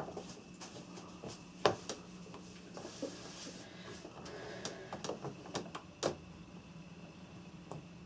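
Hand screwdriver driving a screw into a refrigerator's plastic top cover: scattered small clicks and creaks, with a couple of louder ticks about two seconds in and about six seconds in, over a low steady hum.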